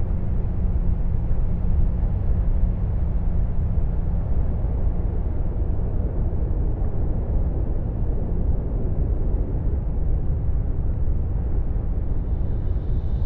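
Steady, deep rumble of blizzard wind, even and unbroken, with a faint high thin tone coming in near the end.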